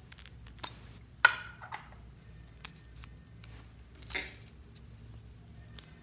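A few sharp plastic clicks as a lipstick's clear cap is pulled off and the tube handled. The loudest comes about a second in, and a second, softer clatter follows about four seconds in.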